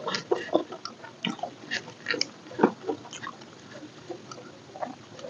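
Close-miked chewing: irregular wet mouth smacks and bites, several a second.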